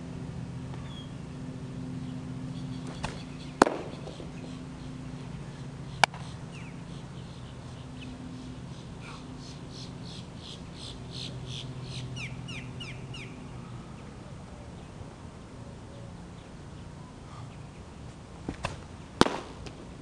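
Sharp cracks of pitched baseballs hitting their target: one a few seconds in, another at about six seconds, and a pair near the end. A steady low hum runs underneath, and a bird gives a rapid run of chirps in the middle.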